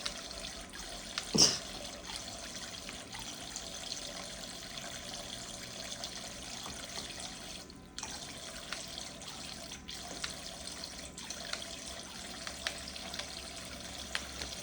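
Toy sink's faucet running a steady small stream of water, with little splashes and clicks as a cockatoo plays in it. One short, sharp, loud sound about a second and a half in.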